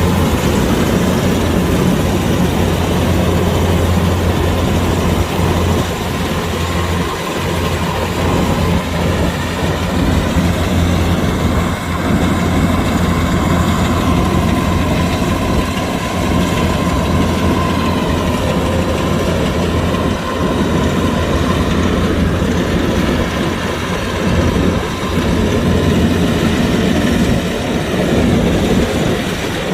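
Kubota DC-105X rice combine harvester running steadily: a loud, continuous drone of its diesel engine and machinery.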